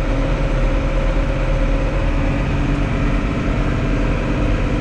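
Fendt Favorit 511C tractor's diesel engine running steadily while driving, heard from inside the cab as a deep, even drone.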